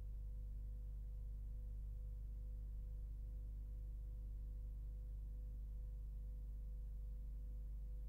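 A steady low hum that does not change, with a faint steady higher tone above it.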